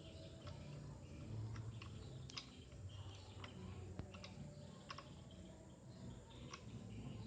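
Faint, irregular clicks and light taps, about a dozen, from small metal parts being handled as a modified scroll saw blade clamp is fitted, over a faint low hum.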